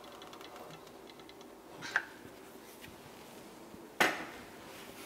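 Two sharp metallic clinks about two seconds apart, the second louder with a short ring after it.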